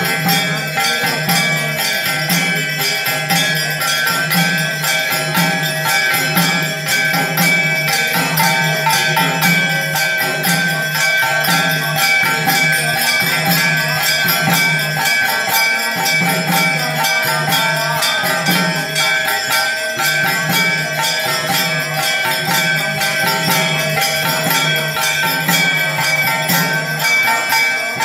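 Temple arati music: a bell rung rapidly and continuously, with a steady low beat about twice a second underneath.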